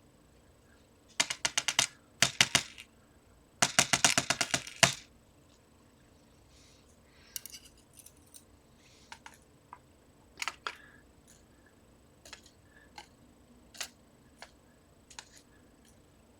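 Small lock springs being dumped out of a Trioving lock's housing onto a tray: three quick rattles of tiny metal clicks in the first five seconds, then scattered single clicks.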